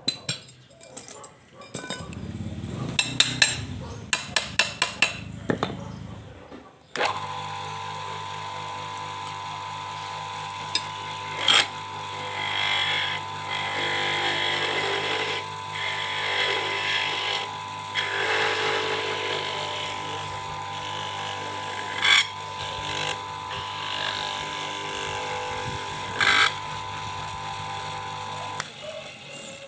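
A few seconds of clicks and knocks, then the electric motor of a homemade PVC pipe lathe starts abruptly and runs with a steady hum. A rasping noise swells and fades over it, along with a few sharp knocks, and the motor cuts off near the end.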